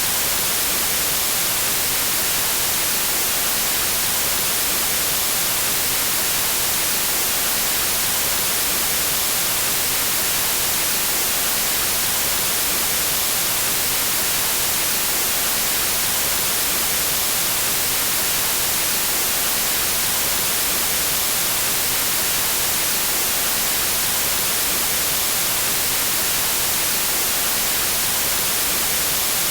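Synthetic white noise: a steady, even hiss that does not change.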